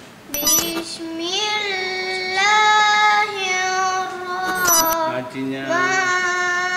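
A boy reciting the Quran in a melodic, drawn-out chant (tilawah), holding long notes that rise and fall slowly in pitch, in two long phrases with a short breath between them about five seconds in.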